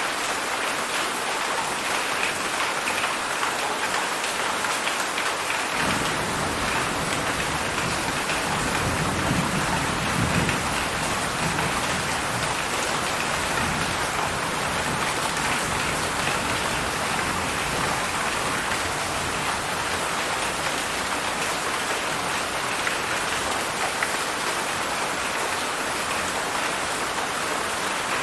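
Heavy rain falling steadily, with a long low rumble of thunder that comes in about six seconds in, swells for a few seconds and slowly dies away.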